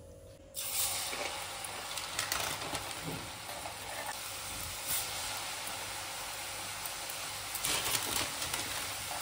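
Murukku dough dropping into hot oil in a kadai, setting off deep-fry sizzling that starts suddenly about half a second in and carries on steadily, with sharper crackles here and there.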